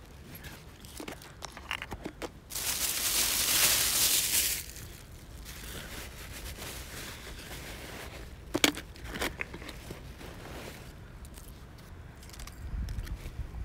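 Rustling, crinkling and scraping handling noise right at the microphone, loudest for about two seconds early on. A few sharp clicks follow about two-thirds of the way in.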